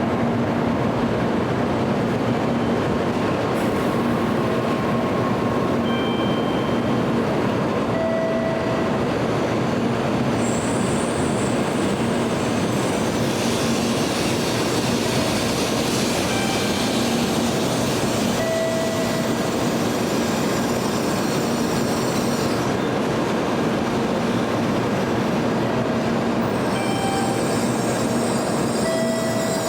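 Tokaido Shinkansen train running at the station: a steady, even running noise, with brief faint wheel squeals every few seconds.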